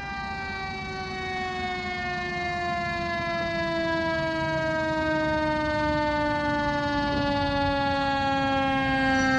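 Fire engine's mechanical siren winding up sharply at the start, then slowly coasting down in pitch, growing louder as the truck approaches.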